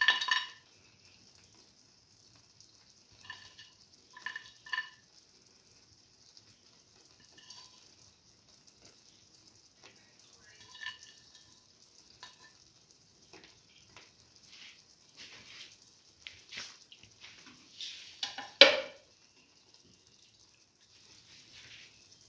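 Light metallic clinks of a spoon against steel cookware, each with a short ring, scattered irregularly and growing busier after the halfway point. A louder knock and clatter comes near the end.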